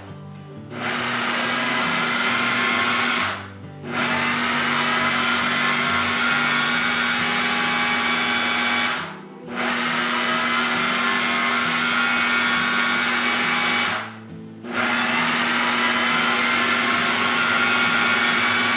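Electric food processor motor running in four runs of several seconds each, with three brief stops between, as it blends butter and cheese into biscuit dough until it comes together. It makes a steady hum under a high whine.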